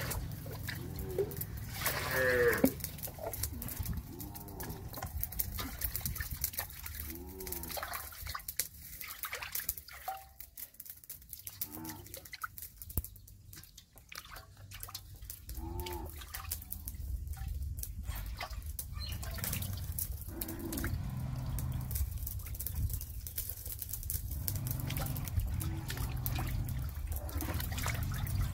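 Water splashing and sloshing in a steel basin as hands scrub and turn whole fish, with drips and trickles of water.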